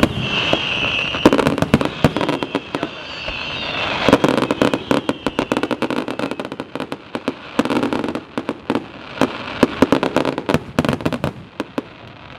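Aerial fireworks display: shells bursting with a dense run of sharp cracks and crackling, one after another, thinning out near the end.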